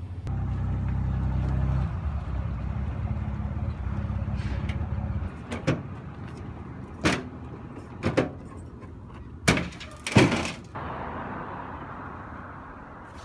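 A vehicle engine running, shut off about five seconds in, followed by a handful of sharp bangs and clanks spread over the next five seconds.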